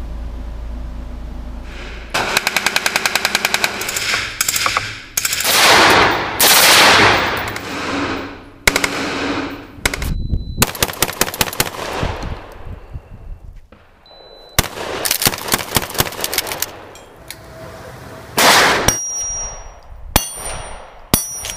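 A montage of gunfire. After a steady low hum, a rapid burst of about ten shots a second is followed by single loud shots with long echoing tails. Near the end come short metallic dings from steel plate targets being hit.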